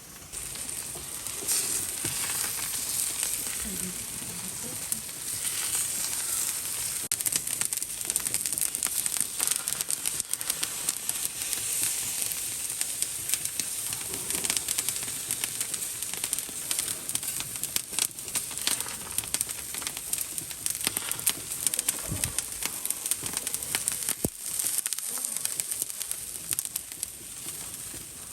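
Meat sizzling on a barbecue grill: a steady hiss of cooking fat with many small crackling pops.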